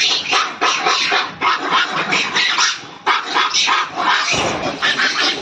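A pack of dogs barking and growling over and over while they attack a monkey.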